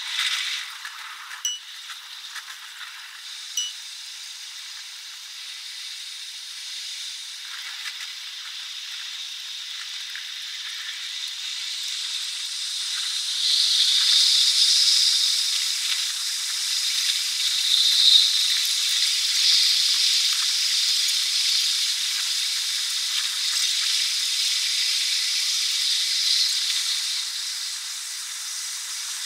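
A train running on the line, its rail and running noise played back at ten times speed so that it becomes a high, steady hiss with nothing low in it. A few sharp clicks come in the first few seconds, and the hiss swells louder from about twelve seconds in, then eases off near the end.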